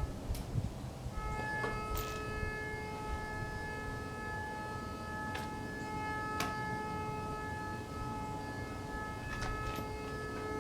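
Metal detector sounding a steady alert tone that starts about a second in and holds, signalling metal in the log, which the sawyer traces to a nail. A few light clicks from handling the detector sound over it.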